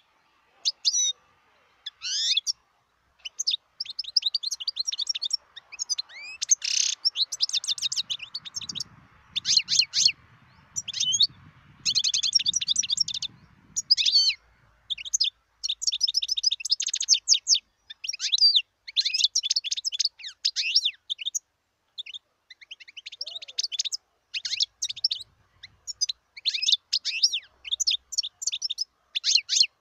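European goldfinch singing: a fast twittering song of quick, high, sweeping notes, delivered in phrases broken by short pauses.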